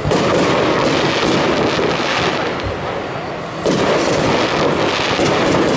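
Aerial firework shells bursting, one right at the start and another about three and a half seconds in. Each burst is followed by a dense crackle that runs on.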